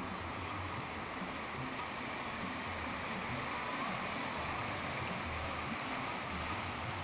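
Steady rushing of surf and choppy water, with an uneven low rumble underneath.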